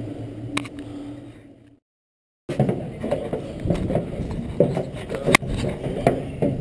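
A steady low hum that cuts off abruptly, then after a brief dead silence, rustling handling noise with many scattered knocks and clicks.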